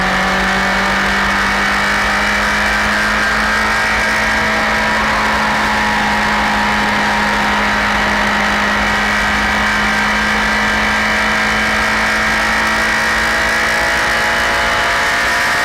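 Loud Honda CBR1000RR SC57 inline-four engine held at steady revs, its pitch creeping slowly and evenly upward.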